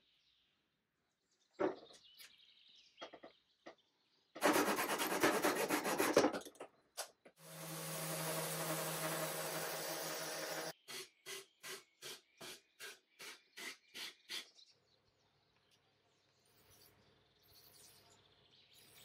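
Festool random orbital sander running on a wooden drawer front for a few seconds in the middle, a steady whirr with a low hum that cuts off abruptly. Around it come other short workshop sounds: scattered knocks early on, a loud rasping burst just before the sander, and a run of regular short strokes right after it.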